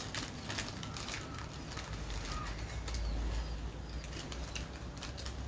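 Foil potato chip packets crinkling as hands dig chips out of them, with chips crunched while eating: short, irregular rustles and crackles.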